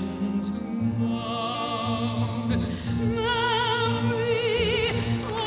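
Operatic music: a high voice sings held notes with a strong vibrato over instrumental accompaniment.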